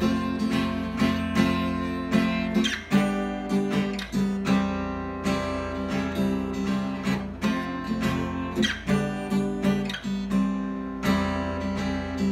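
Acoustic guitar played solo, a chord progression with chords struck about two to three times a second and left ringing between strokes.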